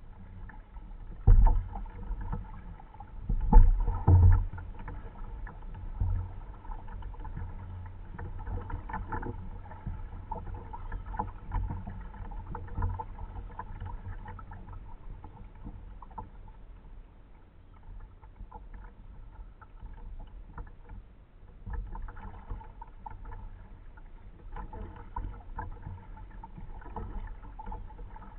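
Kayak being paddled: irregular paddle splashes and water lapping against the hull. A few sharp thumps in the first few seconds are the loudest sounds.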